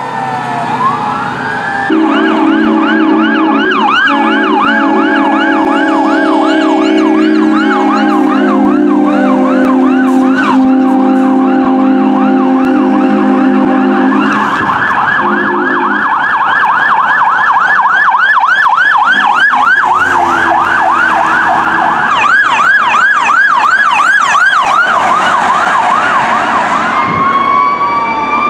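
Fire truck sirens: an electronic siren wailing down, then switching to a fast repeating yelp that carries on through most of the stretch. Long steady air-horn blasts sound under it for about the first half and briefly again later. A second, higher siren joins for a few seconds, and the yelp slows back to a wail near the end.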